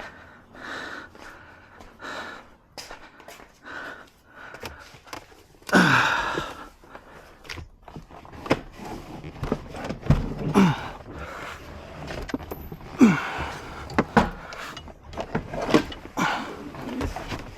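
Scattered knocks, clicks and scrapes of hands working plastic trim and parts loose inside a Subaru XV's interior, with a few short breaths between them.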